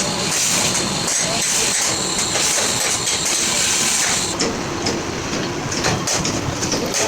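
Heavy truck engine running, with a loud steady hiss over it that cuts off about four seconds in.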